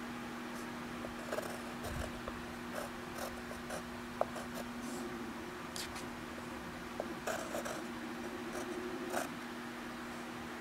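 Pencil scratching on paper in short, irregular strokes, over a steady low hum.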